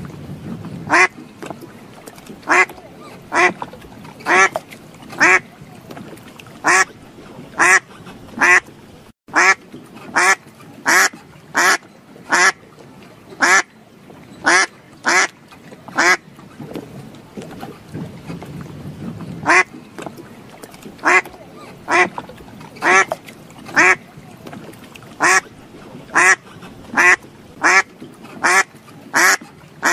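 Duck quacking over and over: short calls repeated at a steady pace, roughly one a second.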